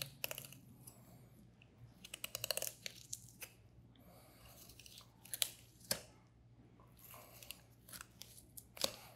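Filleting knife working along a flatfish's bones: faint crisp clicks and crunches, in small clusters with short gaps, as the blade scrapes over the fine bones beneath the fillet.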